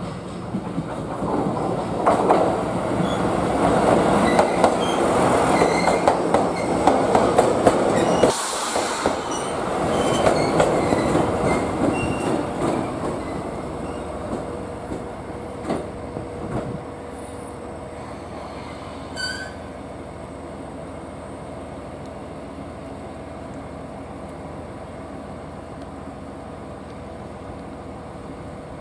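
GV-E400 diesel-electric railcar rolling over points into the station, its wheels clattering and giving short high flange squeals. The sound cuts off abruptly about eight seconds in, and a second stretch of train rumble fades away, leaving the railcar's steady engine hum.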